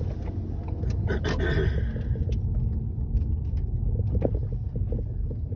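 Ford Grand C-Max heard from inside the cabin on the move: a steady low road and engine rumble, with a few light clicks and knocks scattered through it.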